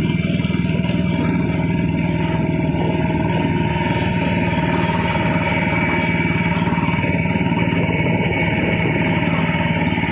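Royal Enfield Bullet's single-cylinder engine running steadily at cruising speed, heard from the rider's seat as an even, rapid beat of exhaust pulses.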